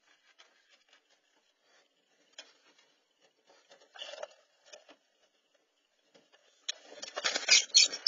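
Faint scattered ticks and rustles, a louder rustle about four seconds in, then from near the end a loud, dense crackling and scraping scuffle: a raccoon seizing a robin on its grass nest, with the nest straw and the raccoon's fur brushing right against the camera.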